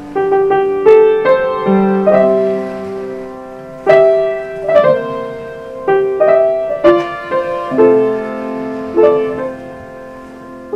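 Piano music: a melody of struck notes that ring out and fade.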